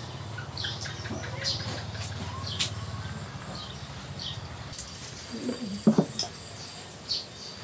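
Small birds chirping now and then in short high calls, over a low steady hum that fades after about three seconds. A sharp click comes near the middle, and there are brief faint voices with a couple of knocks about six seconds in.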